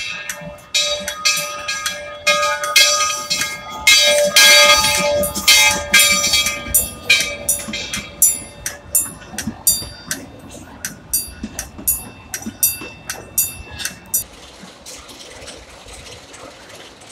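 Steam locomotive bell ringing steadily, about two strokes a second, as the train pulls out. The bell stops about fourteen seconds in, and a louder rush of noise rises over it about four seconds in.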